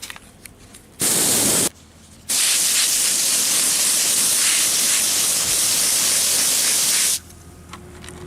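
Garden hose spraying water to rinse freshly harvested vegetables: a short spray, then after a brief pause a long spray of about five seconds.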